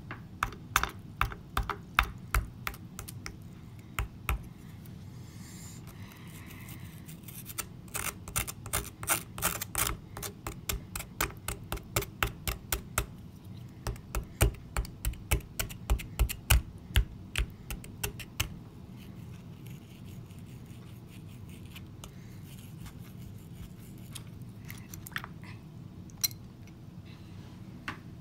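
A small digging tool tapping and chipping at a soaked dig-kit block, a quick series of sharp clicks. The clicks come in rapid runs through the first two-thirds and thin out to a few taps near the end.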